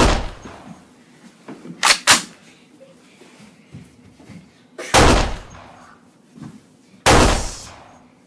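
Five loud, sharp bangs, each fading out over about a second: gunshot sound effects. Two come close together about two seconds in.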